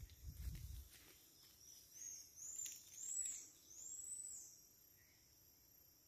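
Four high, thin whistled calls from an animal in the trees, each note rising and falling and each longer than the last. A few low handling thumps come in the first second.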